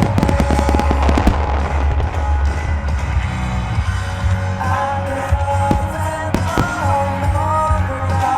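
Aerial fireworks bursting over loud music from the show's sound system: a rapid cluster of bangs and crackles in the first second and a half, then a few single bangs near the middle and later.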